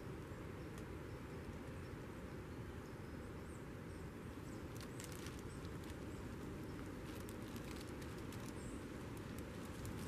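Small crackles and clicks of bark, moss and twigs being handled as lichen is picked off an old rotting log, bunched about five seconds in and again from seven to nine and a half seconds, over a steady outdoor background hiss.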